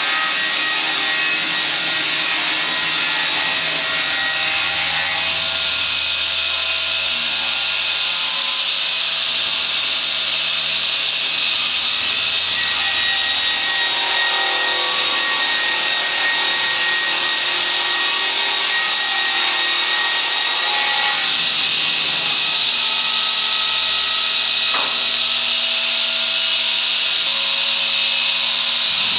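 A sawmill's large circular saw blade cutting lengthwise through a log, making a steady, loud, hissing saw noise with a faint whine in it. It gets a little louder about two-thirds of the way through.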